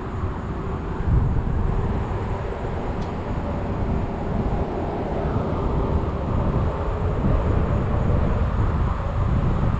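Outdoor background dominated by a steady, loud low rumble, with a faint steady hum above it and a single small click about three seconds in.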